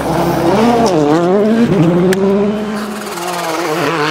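Rally car's turbocharged engine revving hard, its pitch dropping and climbing twice in quick succession as it shifts through a corner, then rising and holding steady as it accelerates away.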